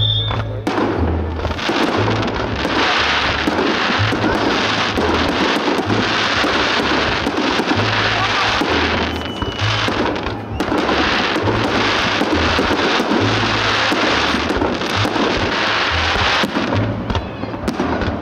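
Fireworks bursting and crackling over loud music with a pulsing, regular bass line.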